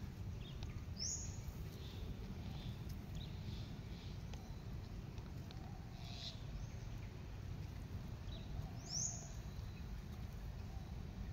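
Birds chirping and calling, with two louder short, sharp calls about a second in and near the end, over a steady low rumble of background noise.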